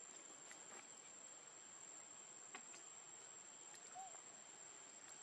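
Near silence: a faint, steady, high-pitched insect trill, with a few light ticks and a brief faint squeak about four seconds in.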